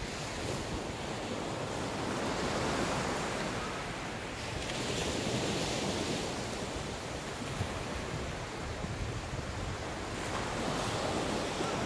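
Ocean surf breaking and washing up a sandy beach, a steady rush that swells and eases in slow surges every few seconds.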